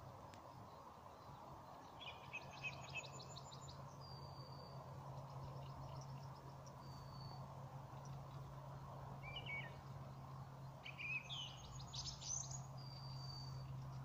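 Wild songbirds singing in the morning: a quick run of high notes about two seconds in and again about eleven seconds in, with single thin high whistles in between. A steady faint low hum runs underneath.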